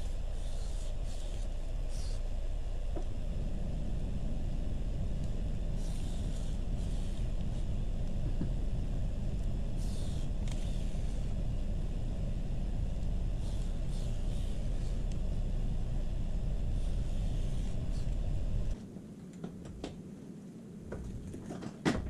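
Kawasaki Ninja 650 parallel-twin engine running steadily in gear on the rear stand, driving the chain and rear wheel, with about eight short hisses of aerosol chain lube. The engine sound cuts off suddenly a few seconds before the end, leaving a few light clicks and knocks.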